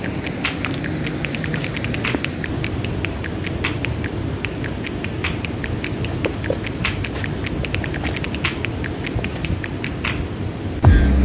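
Steady rushing of river rapids, with many irregular small clicks and taps over it. Music starts near the end.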